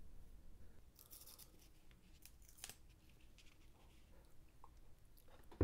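Faint handling sounds as the speaker and its removed grill are moved about: a brief rustle about a second in, a few light taps and ticks, and a sharper click at the very end.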